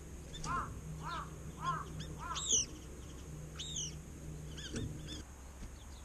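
Wild birds calling: a run of four evenly spaced, arching calls, then two loud, high, down-slurred calls and a few shorter high notes near the end.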